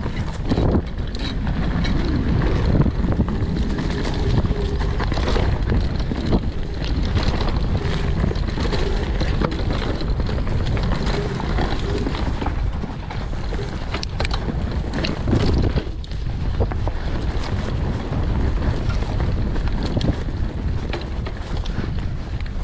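Mountain bike riding a dirt trail: heavy wind buffeting on the camera microphone over the rumble of tyres on the ground, with frequent clicks and knocks as the bike goes over bumps.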